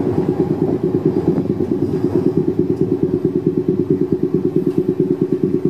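Inside a 1928 Milanese 'Peter Witt' streetcar under way: a steady, rapidly pulsing mechanical drone, about ten beats a second, from the car's running machinery.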